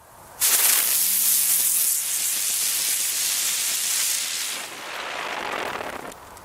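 Ground flower firework (ground spinner) catching with a sudden loud hiss of spraying sparks about half a second in, hissing steadily for about four seconds, then weakening, flaring briefly once more and dying away near the end.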